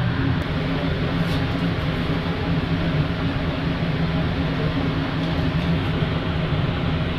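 Ventilation fans running with a steady drone and a low hum.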